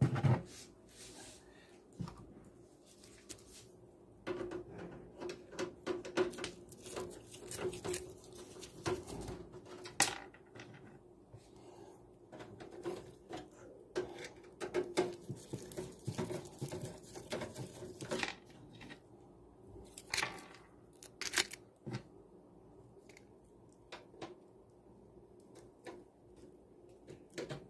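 Scattered clicks, knocks, rattles and scrapes of hands working on a desktop PC case while swapping out its power supply, over a steady low hum.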